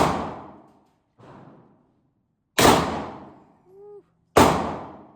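Three loud gunshots about two seconds apart, each trailing off in an echo over about a second.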